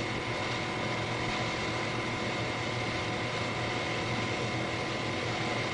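Steady background hiss and low hum of an old speech recording, with a few faint constant tones and nothing else happening.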